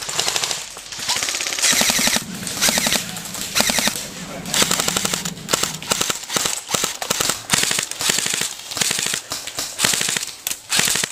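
Airsoft guns firing full-auto in long, rapid bursts of fast, evenly spaced shots, with brief pauses between bursts.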